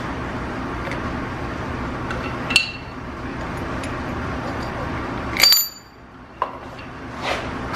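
Steel wrench and clamp parts clinking against the shaper's work-holding setup as the hold-down clamps are loosened and lifted off, with two sharp ringing metal clinks, the louder one about five and a half seconds in, and a few lighter taps, over a steady low hum.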